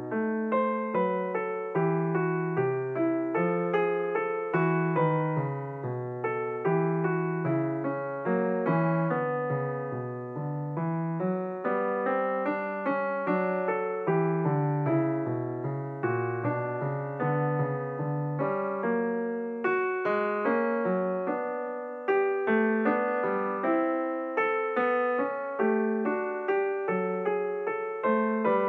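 Background piano music: a steady flow of gently struck notes over a repeating bass line.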